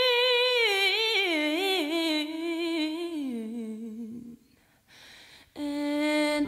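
A solo voice singing unaccompanied, wordless: a long held high note breaks into a descending run with wavering ornaments, fades out about four seconds in, and a lower held note begins near the end.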